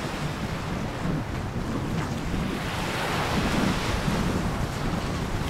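Sea surf breaking and washing on the shore, with wind buffeting the microphone; the wash swells a little louder about three seconds in.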